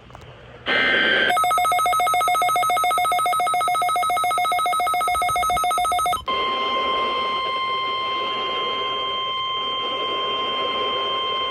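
Emergency Alert System tones on a weather radio broadcast ahead of a severe thunderstorm warning: a brief data burst, then a rapidly pulsing electronic alert tone for about five seconds, then the steady single-pitch weather radio warning alarm tone.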